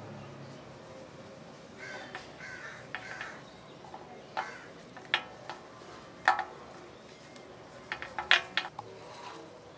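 Crows cawing in a series of short, harsh calls, the loudest in the second half, with light clinks and scrapes of a steel tray on an iron griddle.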